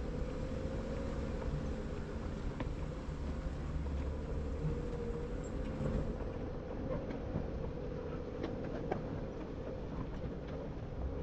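Jeep engine and drivetrain running at crawling speed, a steady buzzing whine that wavers slightly over a low rumble, with scattered small clicks and knocks, mostly in the second half.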